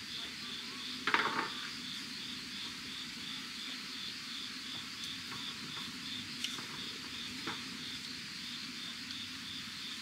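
Insects trilling steadily in a fast, even pulse. A short clatter about a second in, and a few light ticks later.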